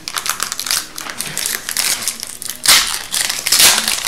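Crinkling of a foil hockey card pack wrapper as it is handled and torn open, with louder crackling bursts in the last second and a half.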